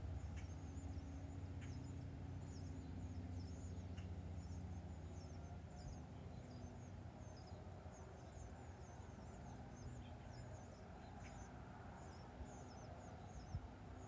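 Small backyard birds chirping and twittering, a quick run of short, high-pitched chirps, over a low rumble that eases off after the first few seconds.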